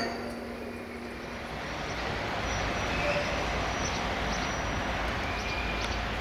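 Quiet railway station ambience: a steady low rumble with a few faint, short high chirps over it.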